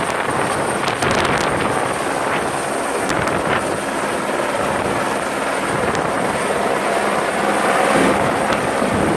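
Helicopter running steadily, a dense rotor and engine noise with a thin, steady high whine over it.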